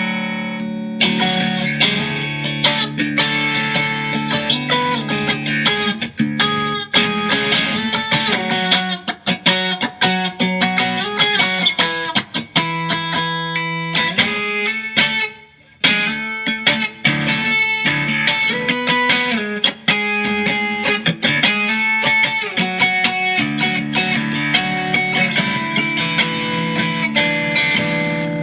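Mexican-made Fender Stratocaster electric guitar played in drop D tuning after a fresh setup: picked notes and chords over a ringing low string, with a short break about halfway through.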